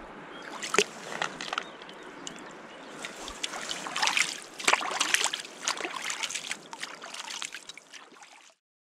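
Hands splashing and sloshing in shallow river water at the bank: a run of small, irregular splashes, busiest in the middle, that cuts off suddenly near the end.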